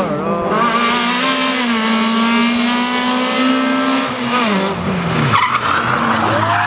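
Rally car engine held at high revs with a steady note, which drops sharply about four seconds in. Tyres squeal and skid near the end.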